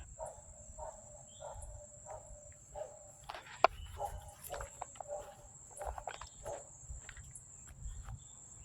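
A distant animal calling over and over in short pitched calls, over a steady high drone of insects. A single sharp click about three and a half seconds in.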